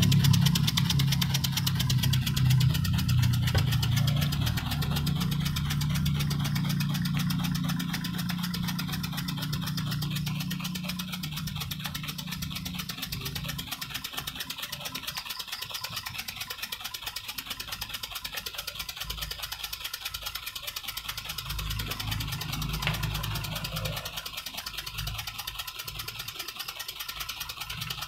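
Homemade miniature steam engine running steadily, its small cylinder puffing rapidly and evenly as it spins a heavy flywheel, with a light mechanical clatter. The sound gradually gets quieter.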